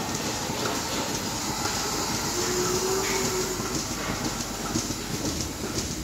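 Milking parlour machinery running steadily, the milking system's vacuum pump and pulsators, with cows' hooves clattering on the concrete floor.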